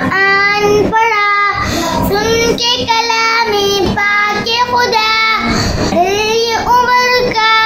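A young boy singing a naat (devotional song) solo, with no accompaniment. His long held notes waver and slide in pitch.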